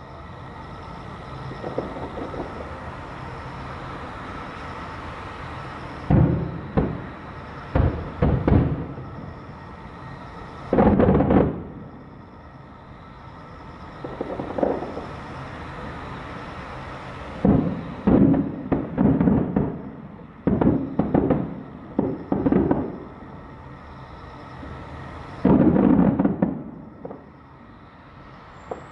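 Distant aerial firework shells bursting: a series of sudden booms, each trailing off in a rolling echo, coming singly and in quick clusters.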